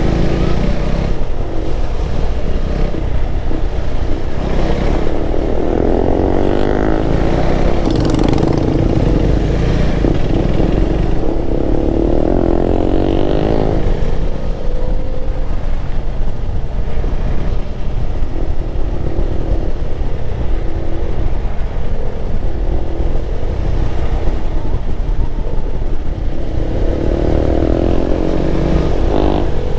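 KTM 390 Adventure's single-cylinder engine running under way, its pitch rising and falling several times as it accelerates and eases off, over a constant low rumble.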